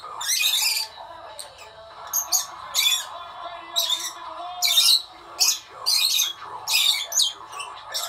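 Fischer's lovebirds calling: a string of short, shrill, harsh squawks and chirps, one or two a second.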